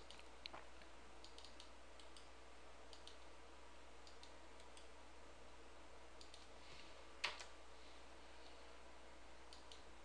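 Faint computer mouse clicks, several in quick pairs like double-clicks, over a low steady hum; one louder click comes about seven seconds in.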